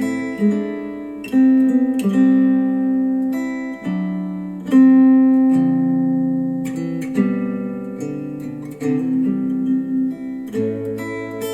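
Acoustic guitar music played back through KEF Q350 bookshelf speakers driven by a NAD C 338 amplifier: plucked and strummed chords ringing out, changing every second or two.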